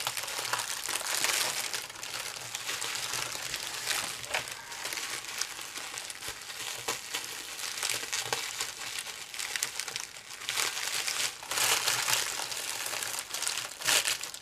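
Clear plastic wrapping crinkling and rustling as hands work it loose from around a figurine, in uneven, irregular bursts.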